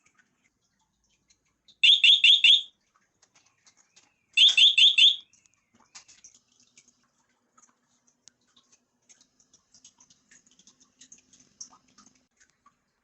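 Netatmo smart carbon monoxide alarm sounding its siren in a test, two bursts of four quick, loud, high-pitched beeps about two and a half seconds apart; the four-beep pattern is the standard carbon-monoxide alarm signal. The beeping stops about five seconds in, and faint clicks follow.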